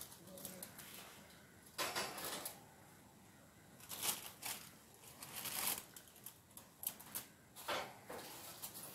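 Aluminium foil crinkling and rustling as foil-covered pans are handled and set on a wire oven rack, in several short spells.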